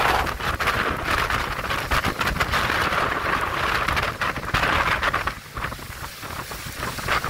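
Hurricane wind and driving rain sweeping across a sailboat's deck and rigging, with gusts buffeting the microphone. The noise is loud and gusty, then eases somewhat about five seconds in.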